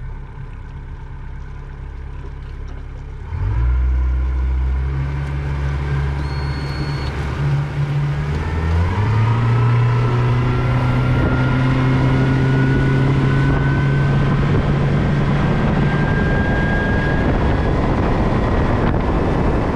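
Outboard motor on a small fishing boat: the engine opens up with a sudden jump in loudness about three seconds in, its pitch rises again a few seconds later as it throttles up, and it then runs steadily at speed.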